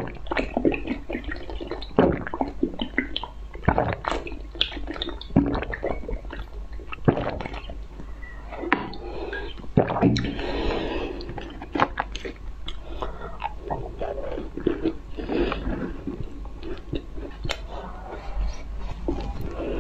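Close-miked wet mouth sounds of eating: slurping a jelly drink, squishy chewing and swallowing, with irregular sharp lip and tongue clicks.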